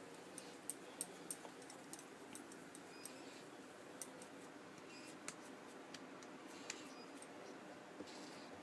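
Near silence with faint, scattered light clicks and taps, a dozen or so at irregular spacing, from hands shaping balls of samosa dough.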